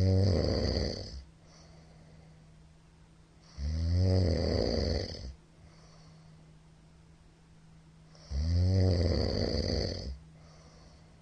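A middle-aged man snoring loudly in his sleep: three long snores about four seconds apart, with softer breaths between them.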